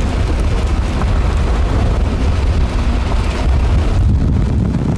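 Wind buffeting the microphone, a loud steady low rumble.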